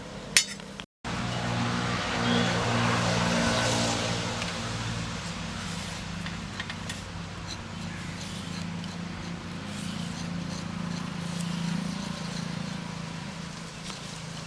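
A motor running steadily, a low hum with a hiss over it, after a sharp click and a brief cut about a second in.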